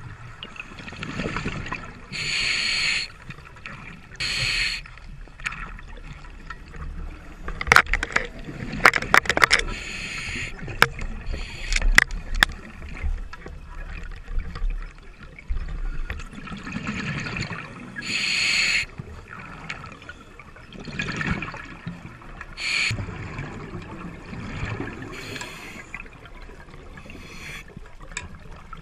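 Scuba regulator breathing underwater: hissing breaths alternating with bubbling, recurring every few seconds. A cluster of sharp clicks comes about eight to twelve seconds in.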